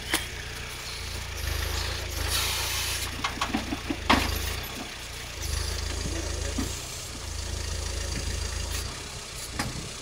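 Small homemade tractor's engine running under the hydraulic load of a backhoe, swelling louder and easing off several times as the arm moves. A quick run of knocks and clunks about three to four seconds in.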